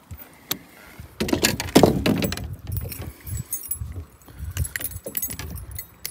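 Metallic clinking and rattling of a spinnerbait's blades and hook as a just-landed bass is unhooked by hand, with sharp clicks throughout and a louder scuffle of handling about a second in.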